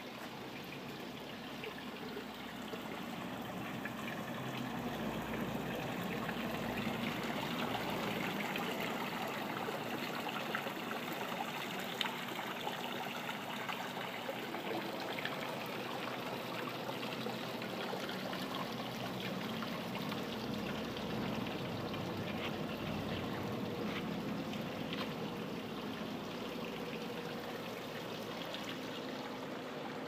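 Water running steadily from pipework beside a wire annealing furnace: a constant rushing trickle that grows a little louder over the first few seconds, then holds steady.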